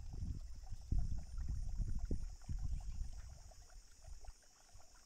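Wind buffeting the microphone: irregular low rumbling gusts, strongest in the middle and easing near the end, over a faint steady high hiss.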